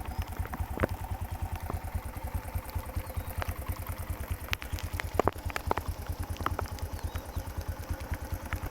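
Small engine chugging steadily at about eight beats a second, with scattered sharp clicks and knocks over it.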